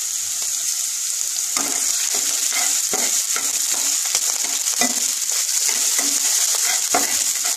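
Chopped onion sizzling in hot vegetable oil in a kadai. From about a second and a half in, a spatula scrapes and stirs through it in repeated short strokes.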